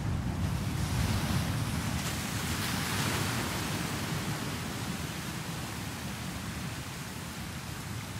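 Steady road noise inside a truck cab on a wet road: a low rumble under the hiss of tyres on wet pavement. The hiss grows louder about a second in and eases off again after a few seconds.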